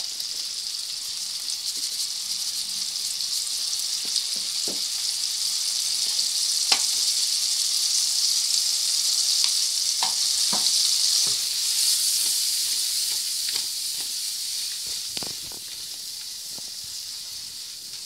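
Mushrooms sizzling in a frying pan in butter with a little water and lemon juice: a steady hiss with scattered small pops and crackles. The sizzle swells through the middle and eases off over the last few seconds.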